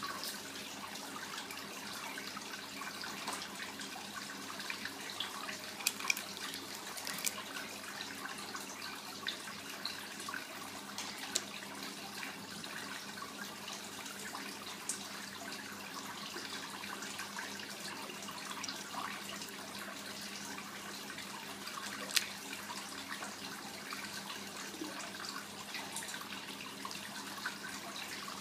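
Steady trickle of running water with a faint hum underneath, broken by a few sharp cracks as a caiman lizard crushes a snail's shell in its jaws; the loudest crack comes about 22 seconds in.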